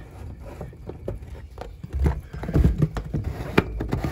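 PVC screw cap being handled and screwed back onto the bottom of a first flush diverter pipe: irregular plastic knocks and clicks, heavier thumps from about two seconds in.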